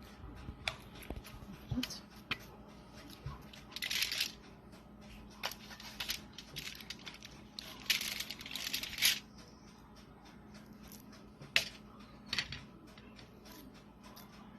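Hands working a stuffed chicken-burger patty and its filling at the counter: scattered light clicks and taps, with two short rustling bursts, about four seconds in and again around eight seconds. A faint steady hum runs underneath.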